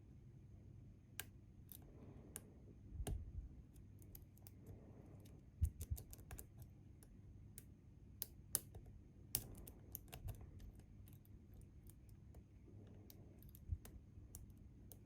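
Faint, irregular small metal clicks and ticks from picking tools working the pins of a Bi-Lock cam lock.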